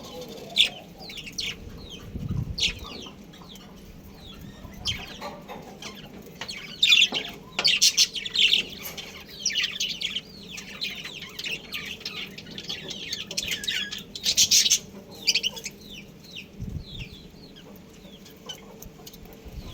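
Budgerigars chattering: many quick, high chirps coming in bursts, thickest about a third of the way in and again about three quarters through, with a couple of soft low thumps.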